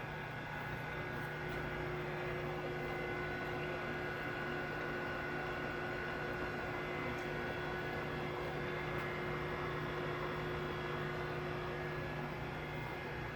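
1977 Mori Seiki MH-3000 engine lathe running under power, its 15 HP motor and geared headstock giving a steady hum with a few whining tones above it.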